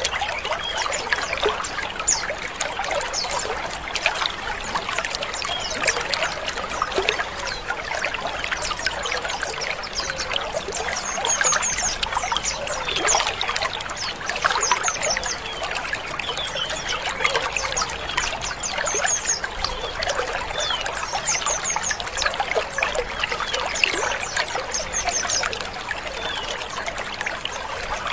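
A flock of white-eyes chattering together: a dense, unbroken mass of many overlapping high chirps and twittering calls.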